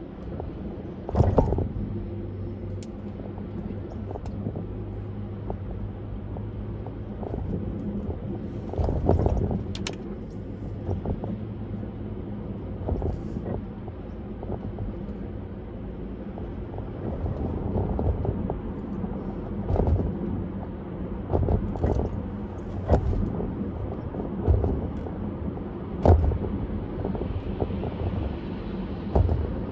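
Car driving on a parkway: steady road and engine noise with a low hum, broken by sharp thumps about a second in, around nine to ten seconds, and again near the end.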